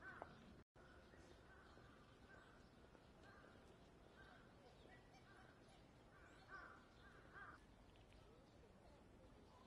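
Near silence: faint outdoor background with a series of short, faint calls in the distance, a little louder in the second half.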